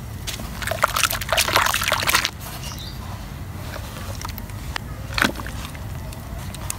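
Blocks of red dirt being dipped and squeezed by hand in a basin of thick muddy water: loud sloshing and splashing for about two seconds, then quieter wet squelching with one sharp wet slap about five seconds in.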